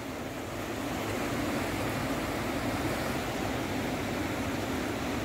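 Steady rushing of a fast, swollen, muddy river in spate, a little louder from about a second in.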